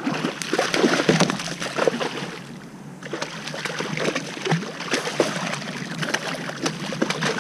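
A hooked bluefish thrashing at the surface, water splashing and sloshing in irregular bursts. The splashing eases about three seconds in, then picks up again.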